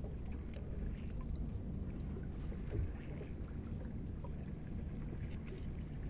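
Wet gill net being pulled hand over hand into a small boat, water dripping and splashing off the mesh in faint scattered ticks over a steady low rumble of wind and river water.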